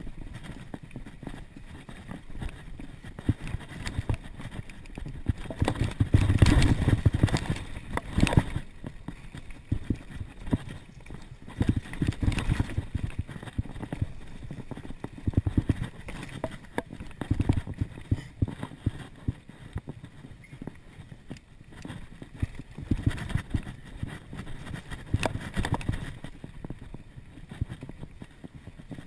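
Mountain bike riding down a dirt singletrack: tyres rolling over dirt and dry leaves, with the bike rattling and knocking irregularly over bumps. The loudest, roughest stretch comes about six to eight seconds in.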